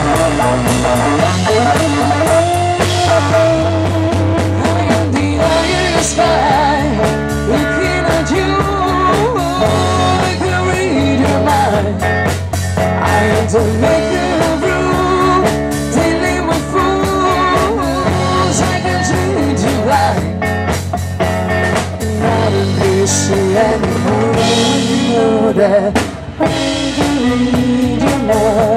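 Live rock band playing: a woman singing into a microphone over electric guitars and a drum kit.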